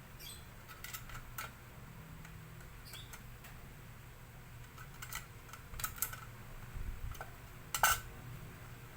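Irregular light clicks and clinks of small hard parts being handled during work on a laminator, over a faint steady hum; the sharpest click comes near the end.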